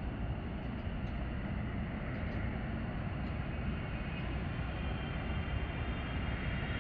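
Distant rumble of a Boeing 777 freighter's twin GE90 jet engines at takeoff thrust during its takeoff roll, steady and slowly building.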